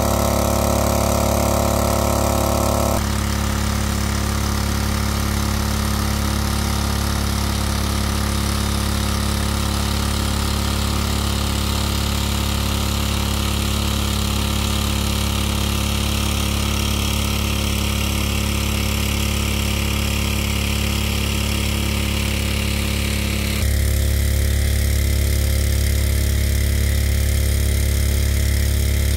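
Small petrol-engine water pump running steadily at a constant speed, pumping water out of a pond, with water gushing from its outlet hose. The tone shifts abruptly about three seconds in and again near the end.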